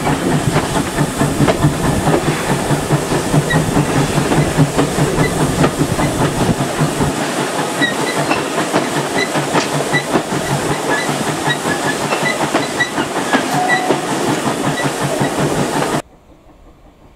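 GWR steam locomotive running at slow speed, heard close up from the train: a rhythmic exhaust beat with steam hiss and wheels clicking over rail joints. About seven seconds in the low beat falls away and the wheel and rail noise carries on. Near the end the sound drops suddenly to a much quieter, distant train.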